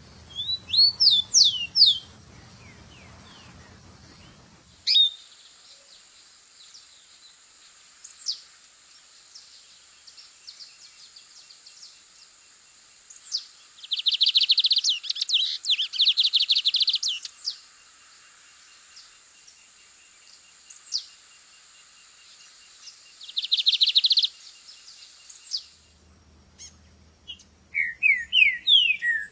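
Songbirds singing: bursts of quick whistled sweeping notes near the start and again near the end, and fast trills about halfway through and once more later.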